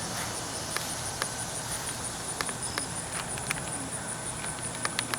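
High, steady pulsing insect call, evenly repeating about five times a second, with scattered faint clicks and a low steady hum underneath.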